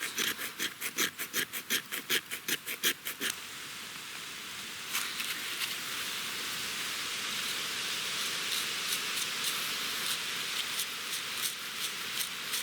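Back of a steel knife scraping a fire-starter rod in quick strokes, about five a second, for about three seconds, then a steady hiss with small crackles.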